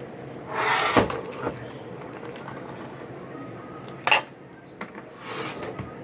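Handling noises: a brief rustle ending in a sharp knock about a second in, then another sharp knock or click about four seconds in, with a few faint ticks.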